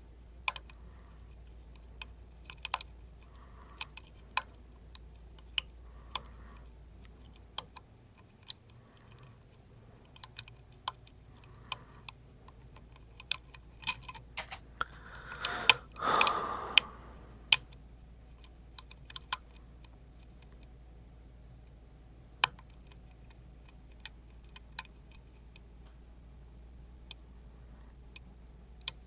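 Lock pick working the back (sixth) pin of an Emhart Black Belt pin-tumbler lock: scattered, irregular small metal clicks of the pick against the pins and keyway as the pin is lifted and tested for setting. A brief rush of noise comes about halfway through.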